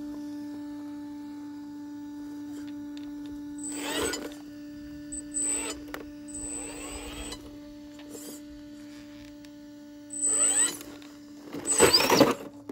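RC rock crawler's electric motor and gears whining in short bursts of throttle as it climbs rock, each burst rising in pitch, over a steady hum. The loudest burst comes near the end as the truck tips over onto its roof.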